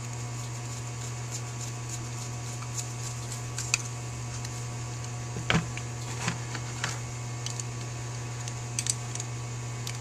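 Screwdriver driving a small screw into a Holley 4000 carburetor's economizer: scattered small clicks and taps, several close together about halfway through, over a steady low hum.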